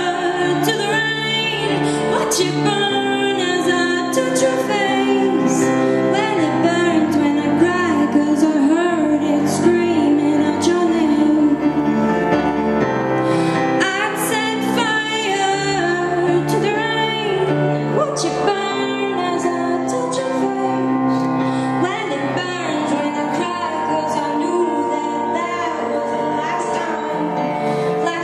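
A woman singing a song with vibrato over instrumental accompaniment of steady sustained notes.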